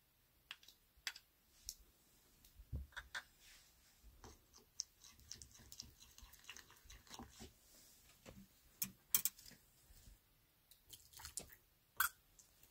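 Metal spoon stirring in a small ceramic bowl of liquid, clinking and scraping against the glazed sides in faint, irregular clicks.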